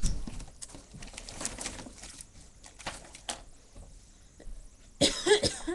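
Small handling noises close to a webcam microphone as a nail kit is worked: a rustle and knock at the start, then scattered light clicks and scrapes. About five seconds in comes a short, louder whining sound.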